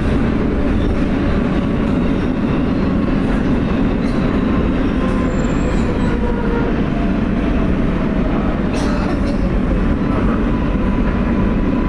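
New York City Subway R143 car running at speed, heard from inside the car: a steady rumble of wheels on rail with a faint whine, and one sharp click near the end.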